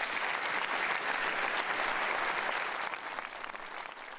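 A large audience applauding: dense, steady clapping that eases slightly near the end.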